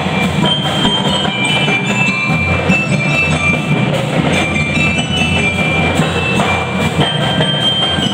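A show band's marching drums and mallet percussion playing together: short, high, bell-like melody notes over continuous drumming.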